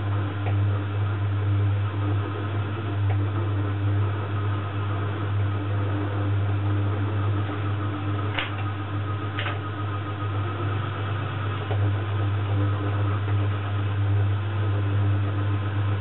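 Small lathe running steadily with a low hum while a cutting tool turns a polyamide bar. Two short clicks come about eight and nine seconds in.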